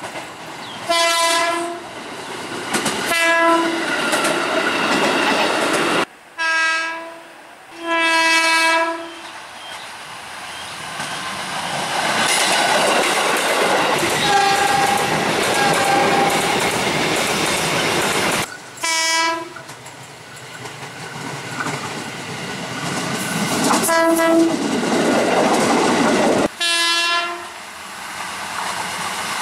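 KRL Commuter Line electric trains sounding their horns, about seven short blasts of one steady pitch, the fourth held longest at about a second. Between the blasts, the train's wheels and running noise rush past loudly, with clickety-clack on the rails.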